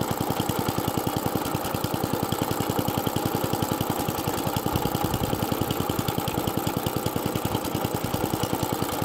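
Atco Balmoral 14SE cylinder mower's Tecumseh engine running steadily just above idle, with even firing pulses. It keeps running because the stop control falls a hair short of making the kill-switch circuit, so it will not shut off.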